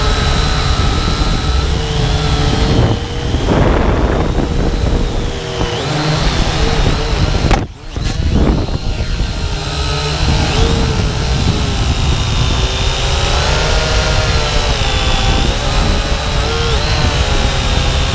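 Syma X8W quadcopter's motors and propellers whining in flight. The pitch wavers up and down as the throttle changes, over a heavy rushing rumble. The sound cuts out for a split second about eight seconds in.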